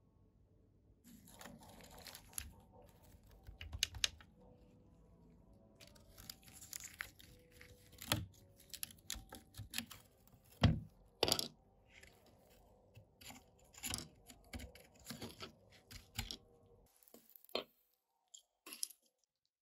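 Rusted metal body of a model car crackling, crunching and snapping as corroded panels are pried and broken off with tweezers and fingers, in irregular clicks and scrapes. One sharp snap stands out about halfway through; near the end it falls almost quiet, with only a few clicks.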